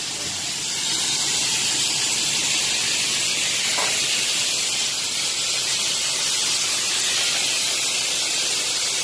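A loud, steady hiss that carries on without a break.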